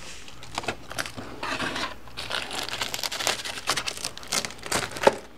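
Utility knife slitting the packing tape and cardboard of a shipping box, a string of irregular scratchy cuts and rips with a sharp click about five seconds in.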